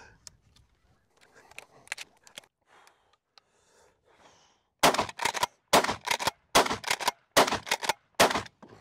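Rock Island All Gen 12 pump-action 12-gauge shotgun firing high-velocity 3-inch shells: five loud shots in quick succession, about one every 0.8 s, with the pump worked between them. They start about five seconds in, after a few seconds of faint handling sounds.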